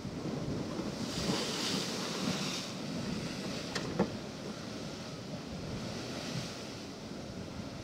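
Surf washing and breaking against a rocky shore, with wind on the microphone; the wash swells louder about a second in. A single sharp click sounds about four seconds in.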